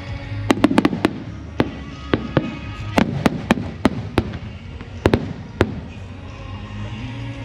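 Aerial fireworks bursting in a rapid series of sharp bangs and crackles, thinning out after about six seconds, with music playing underneath.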